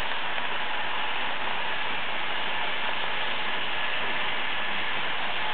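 Model trains running on a Märklin three-rail layout: a steady rolling clatter of wheels on track and pickup shoes sliding over the centre studs.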